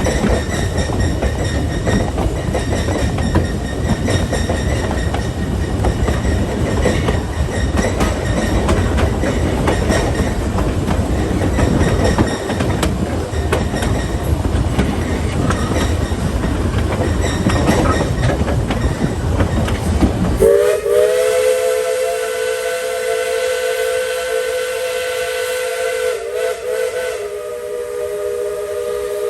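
Narrow-gauge passenger coach rolling behind a steam locomotive: a steady rumble with wheel clatter over the rail joints. About two-thirds of the way in, the rumble gives way to the locomotive's steam whistle blowing one long, chord-like blast, with a brief dip near the end.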